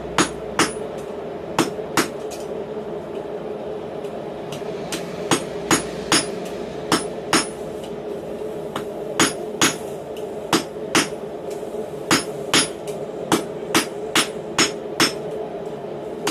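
Hand hammer striking red-hot mild steel on a steel anvil block: a few ringing blows, a pause of about three seconds, then irregular blows at about one to two a second. A steady hum runs underneath.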